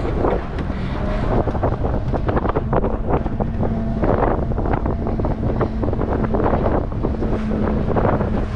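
Strong wind buffeting the microphone aboard a small sailboat under sail, with water rushing along the hull. The wind comes in uneven gusts.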